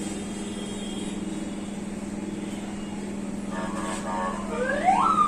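A steady low engine drone. Near the end a vehicle siren wails up in pitch and begins to fall away.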